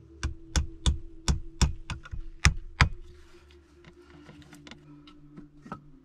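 A nail being hammered into the wooden window frame: about nine sharp blows in the first three seconds, a little under a third of a second apart, then a few fainter taps.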